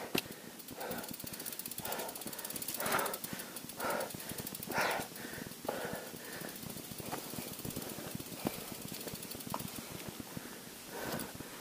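Heavy breathing close to the microphone, a noisy breath roughly every second: a mountain biker out of breath after the climb.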